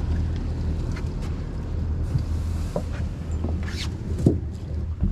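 Twin Mercury Verado 300 V8 outboards idling with a steady low hum. Over it, a few soft knocks and rustles as a cast net and its hand line are gathered up.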